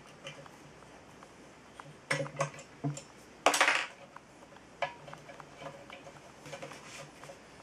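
Metal clinks and knocks as the drill press's toothed steel rack and collar are handled and fitted on the column: a few light clinks about two seconds in, a louder metallic scrape-and-rattle lasting about half a second a little later, then a single sharp click.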